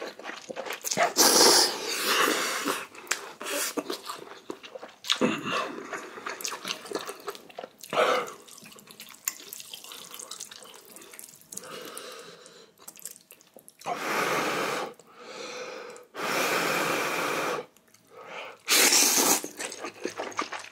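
Spicy instant ramen noodles being slurped in loud, wet pulls of a second or two, about half a dozen times, with chewing and smacking between.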